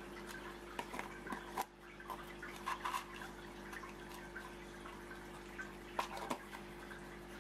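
Aquarium water trickling and dripping in irregular small splashes, over a steady low hum.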